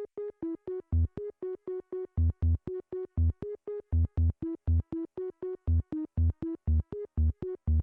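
Electronic music: short clipped notes, about four a second, moving between two pitches, with deep bass notes landing on some beats.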